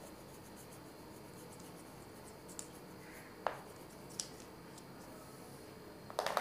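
Crayon scribbling softly on paper in quick strokes, with a few light clicks. Near the end comes a cluster of sharper clicks as crayons knock together while one is set down among the others.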